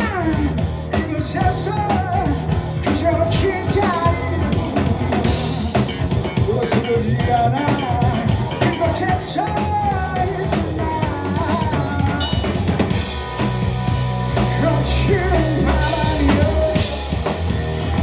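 Live rock band playing: drum kit with kick and snare, electric bass and guitar, with a voice singing the melody.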